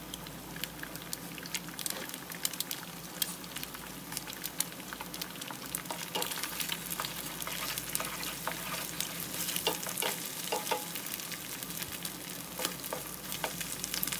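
Two eggs sizzling and crackling in hot oil in a non-stick wok, with frequent sharp pops of spitting oil. In the second half a wooden spatula scrapes through the eggs, breaking them up and stirring them.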